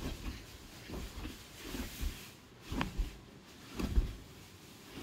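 Soft, irregular thumps and rustles of a hand and a kitten's paws batting on a bedsheet-covered mattress during play, about one every half-second to second.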